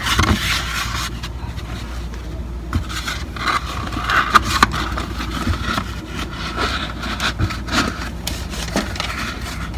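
Foam insole being pushed and worked down into an Air Jordan 1 high-top sneaker: irregular scraping and rubbing against the shoe's lining, with a few short knocks.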